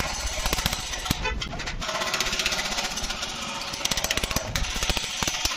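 Rapid run of hammer taps on a scooter's steel body panel, metal on metal, with a metal bar held behind as a dolly: hand dent removal.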